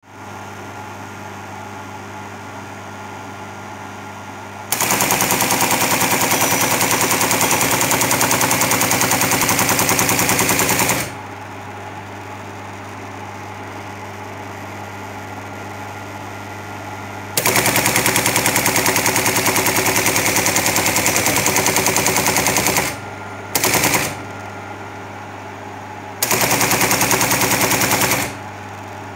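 Teletype ASR-33 paper tape reader stepping punched tape through in bursts of rapid, even mechanical clatter. There are two long runs of about six seconds, a short one, a two-second one, and another starting near the end, with a steady hum between them while the reader stands idle.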